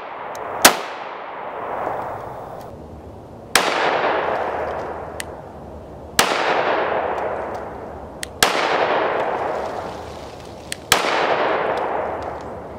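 5.7x28 mm pistol shots fired slowly: one short, sharp crack about half a second in, then four shots from a Smith & Wesson M&P 5.7 about two and a half seconds apart, each with a long echoing tail.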